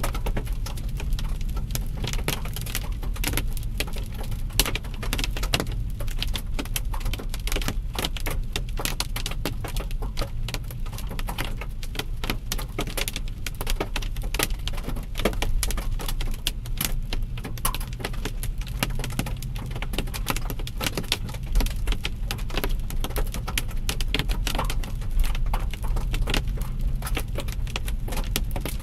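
Hailstones pelting a car in a dense, irregular patter of hard clicks, over the steady low rumble of the vehicle on the road.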